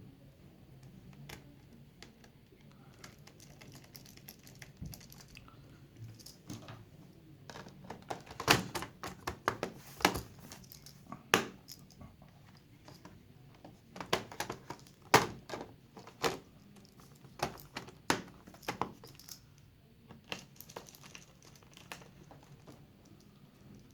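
Irregular sharp clicks and knocks with some crinkling: hard plastic laptop parts and covers being handled and fitted back together. The clicks are thickest in the middle stretch.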